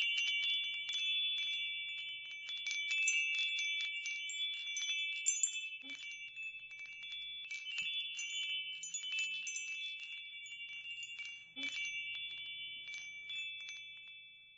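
Wind chimes ringing, struck irregularly several times a second, with a few high tones ringing on between the strikes. The level slowly fades toward the end.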